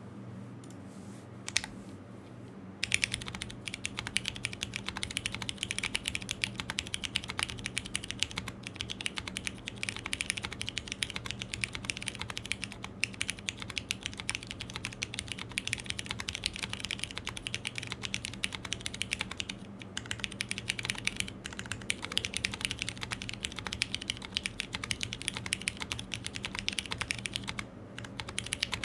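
Custom Typ60 60% mechanical keyboard with HG Brown switches on a carbon fibre flex-cut plate being typed on fast and continuously. The keystrokes come in a dense, even stream after a single keypress and a short pause at the start, with brief breaks in the typing and a stop just before the end.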